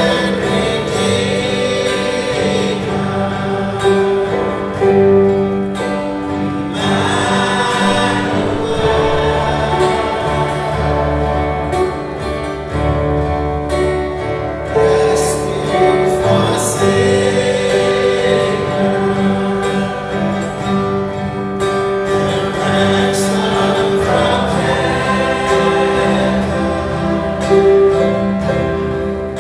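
Church praise band playing and singing a worship song: several voices singing together over strummed acoustic guitar, electric guitars and keyboard.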